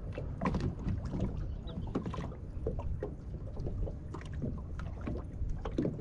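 Small waves lapping and slapping against the hull of a fishing boat, with scattered light knocks and a low wind rumble on the microphone.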